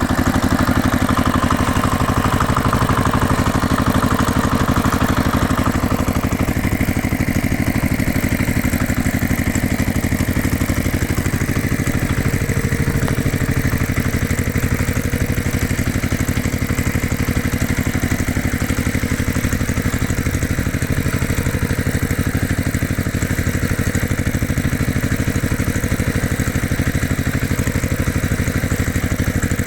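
Tractor engine idling steadily with a fast, even firing beat, a higher whir over it for the first six seconds or so.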